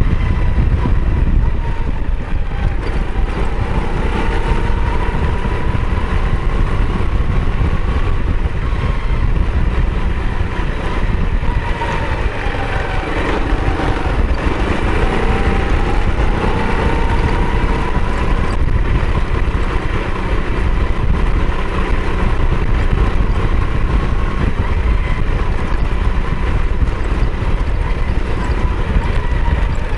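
Heavy wind rumble on the microphone over the running motor of the vehicle the camera rides on, with a faint whine that rises and falls as the speed changes.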